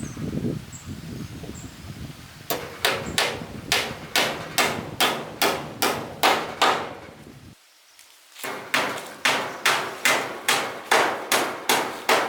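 Hammer striking wood in quick, even blows, about three a second. There are two runs of a dozen or more strikes with a short break between them, typical of nailing boards for a wooden wall.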